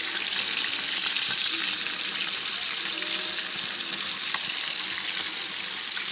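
Tilapia frying in hot oil: a steady sizzle with small scattered crackles.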